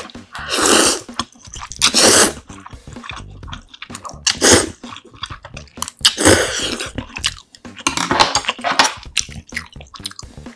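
A series of loud, wet slurps as instant jjamppong ramen noodles are sucked up from chopsticks, about six in all, with chewing between them.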